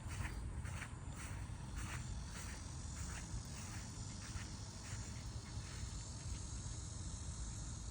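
Steady outdoor insect chorus buzzing, with a low rumble of wind on the microphone. Soft short strokes repeat about twice a second through the first five seconds or so, then fade.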